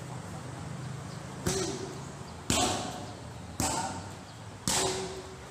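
Muay Thai strikes smacking into Thai pads: four sharp slaps about a second apart.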